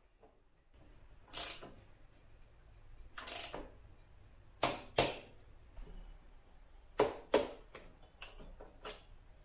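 Socket wrench working a motorcycle's front brake caliper mounting bolts: about eight sharp metallic clicks, spaced unevenly, two of them in quick pairs.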